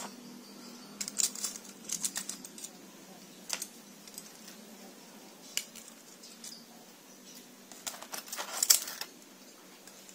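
Metal kitchen tongs clicking and clinking against a ceramic plate as fried cakes are lifted onto it. Scattered sharp clinks come throughout, with a quick, louder cluster near the end.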